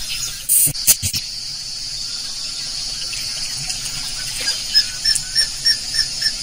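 Wild outdoor ambience: a steady high insect hiss with a few sharp clicks about half a second to a second in. From about four and a half seconds in, a small animal chirps over and over, about three chirps a second.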